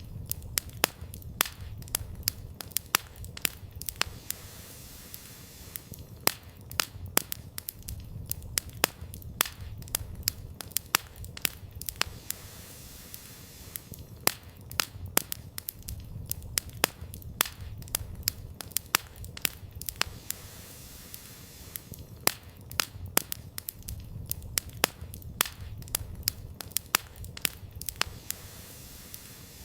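Wood campfire burning, its logs crackling and popping in quick irregular snaps, several a second, over a steady low rumble.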